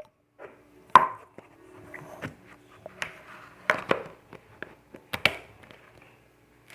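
Slime being handled, with a few sharp sticky pops and quieter, irregular crackling between them.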